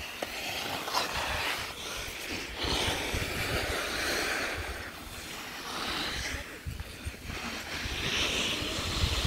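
Skis scraping and sliding over packed snow during a run, the hiss rising and falling twice as the skier turns. Wind buffets the microphone throughout with a low rumble.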